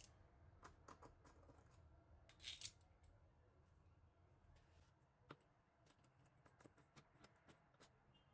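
Faint metal clicks and taps as a small quick-change tool post is handled and set onto a lathe's saddle table, with one brief louder clatter about two and a half seconds in.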